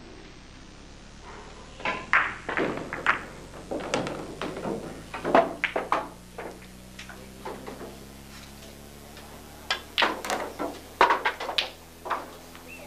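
Pool balls and cue clacking and knocking on a pool table in two clusters of sharp hits, the first about two seconds in and the second about ten seconds in, when a shot is played and balls collide and drop. A low steady hum runs underneath.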